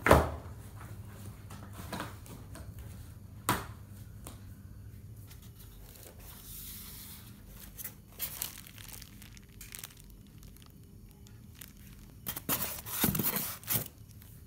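Plastic packaging bags crinkling and rustling as accessories are handled in a TV box's styrofoam insert. A loud knock comes right at the start and lighter knocks follow about two and three and a half seconds in. Short crinkles come about eight seconds in, and a longer spell of crinkling comes near the end.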